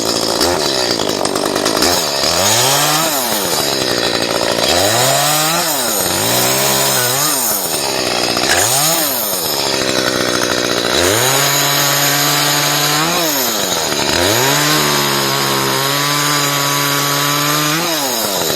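Chainsaw revved in repeated bursts, its engine pitch climbing and dropping about six times. In the second half it is twice held at steady high speed for a few seconds, as when cutting branches.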